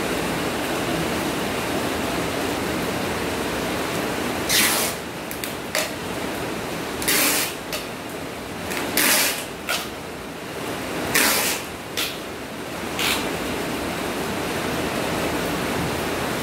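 Packing tape being pulled off the roll and pressed onto a box in a string of short, loud strips, starting about four seconds in and stopping a few seconds before the end, over a steady background hiss.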